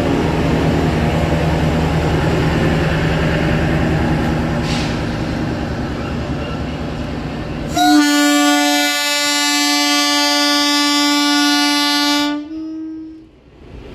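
Passenger train rumbling along the track as it pulls away, then a long loud blast of its horn starting about eight seconds in and lasting about four seconds, ending with a brief slightly higher, quieter note before cutting off.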